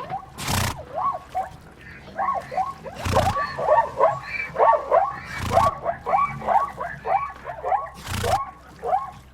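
An animal's calls: a fast run of short yelping cries, several a second, with four short loud bursts of noise spaced a few seconds apart.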